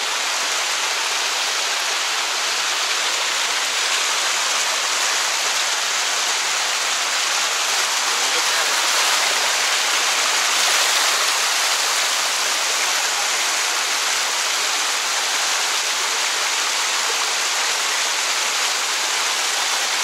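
Steady rush of a waterfall's water spilling over limestone cascades.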